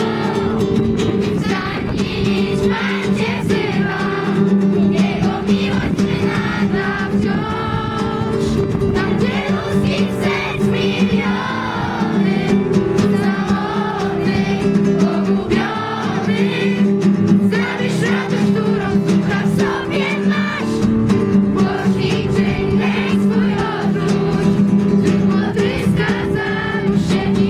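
A song with a group of voices singing together over steady instrumental backing with sustained low notes.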